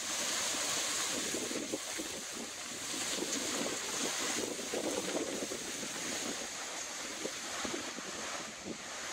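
Strong storm wind, about 40 mph with gusts to 60, rushing through palm fronds. It swells and eases in gusts that buffet the microphone, over a steady high hiss.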